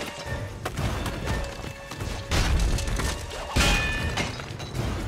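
Action-film soundtrack from a fight scene: dramatic score music under heavy impacts and crashes, with the biggest hits about two and a half and three and a half seconds in.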